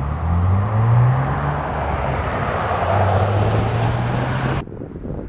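A vehicle engine running with a low drone that rises in pitch over the first second or so and then holds steady, over a broad rumble. It cuts off abruptly about four and a half seconds in.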